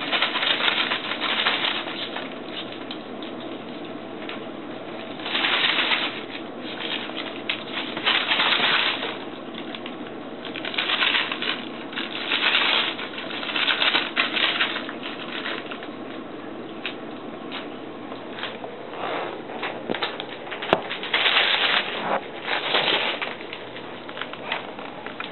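A white terrier puppy shaking and worrying a plush toy on a tile floor: repeated bursts of scuffling and flapping, each about a second long, with a sharp click about two-thirds of the way through.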